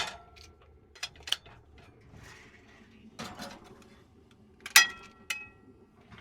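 A metal baking pan being put into a small oven: a series of sharp metallic clanks and a short scrape against the rack and door. The loudest clanks, near the end, ring briefly.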